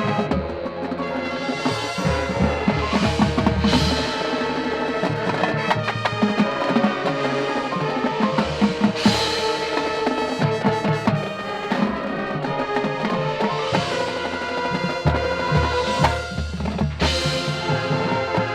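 Marching band playing its field show: held wind and brass chords over a drumline of snare and bass drums, with louder hits punctuating the music a few times.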